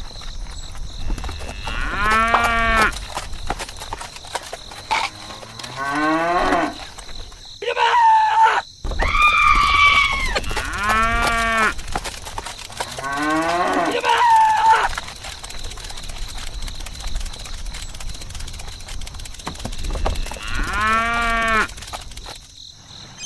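Cattle mooing repeatedly: about seven drawn-out calls, each around a second long, some rising in pitch.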